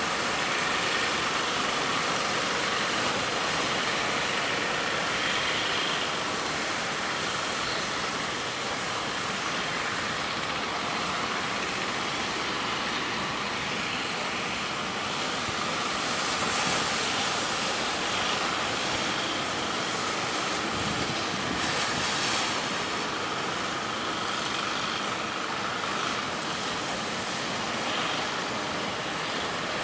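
Strong wind and heavy surf making a steady, even rush of noise.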